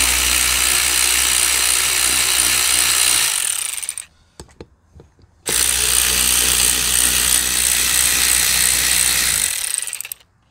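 Cordless electric ratchet running in two long bursts of about four seconds each, with a pause of about two seconds between them and a few clicks in the gap, spinning out the two slider pin bolts of a brake caliper bracket.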